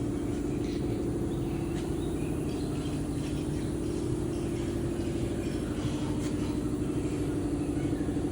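An engine running steadily at idle, with an even low throb.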